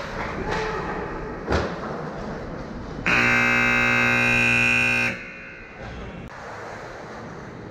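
An ice rink's horn sounds one steady, loud blast of about two seconds, starting about three seconds in. Around it are the noises of play on the ice, with a sharp knock about a second and a half in.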